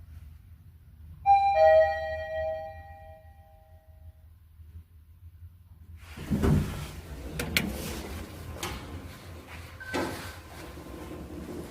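Mitsubishi elevator arrival chime: a loud two-note descending ding-dong about a second in, ringing out over the next few seconds. From about six seconds in, the elevator doors slide open with a rumble and several sharp clicks.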